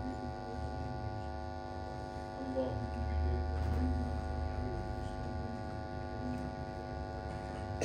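Steady electrical mains hum, a buzz of many even tones, with faint low murmuring voices. A low rumble swells about three seconds in.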